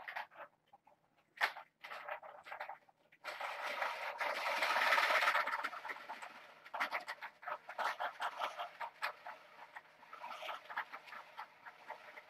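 Balls rolling and rattling around the plastic tracks of a stacked tower-of-tracks cat toy as it is held up and tilted. A continuous rattle starts suddenly about three seconds in and fades a few seconds later, followed by scattered quick clicks.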